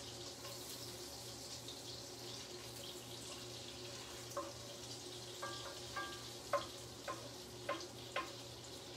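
Garlic frying in melted butter and oil in a pan: a steady sizzling hiss, with scattered small pops and clicks in the second half.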